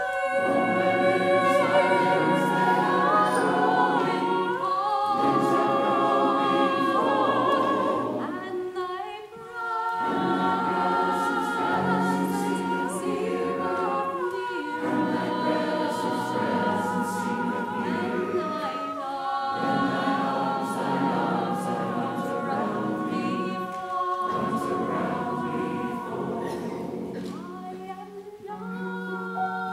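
Mixed choir of men's and women's voices singing with vibrato, in phrases of a few seconds, with short pauses between them.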